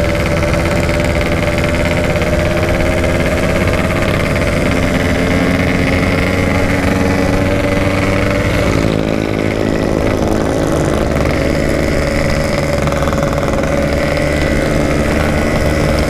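Yamaha RX-King's single-cylinder two-stroke engine running steadily at low speed while riding. Its pitch creeps up slowly, then drops about nine seconds in and holds steady again.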